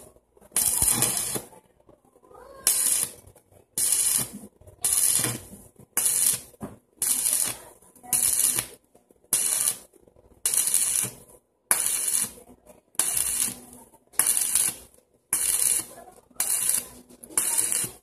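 Electric arc welder crackling and hissing as a steel frame is welded in short stitches: about sixteen runs of under a second each, roughly one a second, with brief gaps between them.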